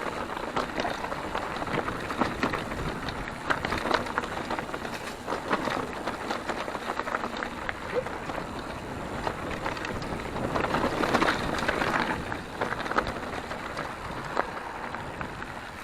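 Mountain bike rolling over a dry dirt and gravel trail: tyres crunching with a continual patter of small knocks and rattles from the bike, louder for a stretch in the middle.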